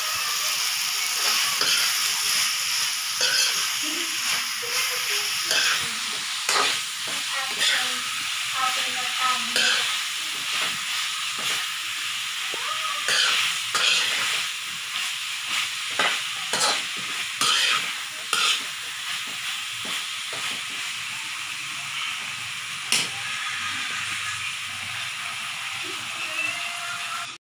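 Eggplant and okra sizzling in a wok while a metal spoon stirs them, scraping and knocking against the pan at irregular moments over a steady frying hiss.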